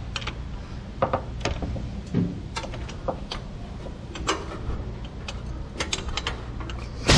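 Hand ratchet wrench on a long socket extension clicking in short, irregular strokes as it turns a bolt of the lower rear engine mount.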